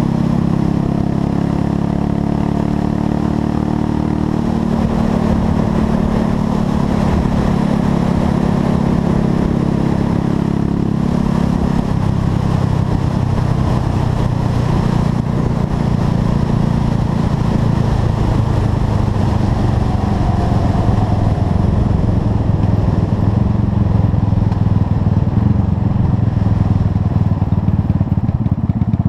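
Buell Blast's single-cylinder engine running under way on a road ride, its note shifting in pitch a few times as speed and gears change, with wind rush over the microphone. The carburettor has a freshly fitted jet kit.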